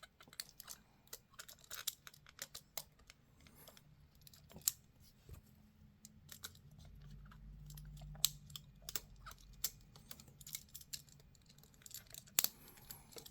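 Irregular small clicks and scrapes of a screwdriver and copper wire being worked into a power socket's terminal, as the loose ground wire is refitted and its screw tightened, with one sharper click near the end.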